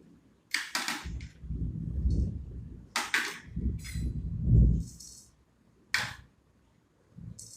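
Kitchen handling sounds: a few sharp clicks and clinks and uneven low knocks, loudest about four and a half seconds in, as nuts and a mixer jar are handled before grinding.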